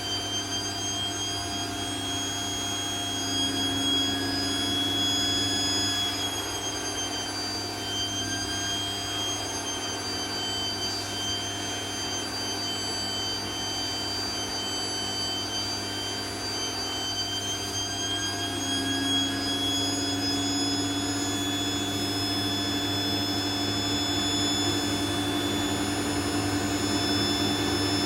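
Vacuum cleaner running steadily, its motor's high whine drifting slightly up and down in pitch as the suction load changes.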